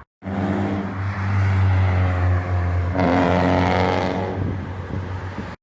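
Sports car engine running loud with a deep, steady note. About three seconds in it grows louder and harsher, then eases off.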